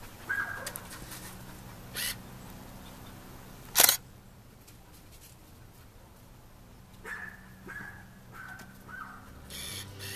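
Digital SLR camera in use: a few short beeps and sharp shutter clicks, the loudest click about four seconds in.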